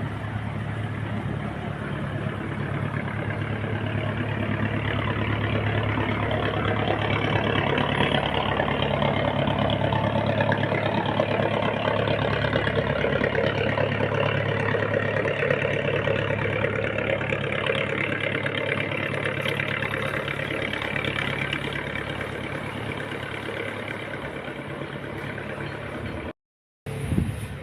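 A boat's engine runs steadily with a low hum. It grows louder through the first half and then slowly fades, and the sound cuts out for a moment near the end.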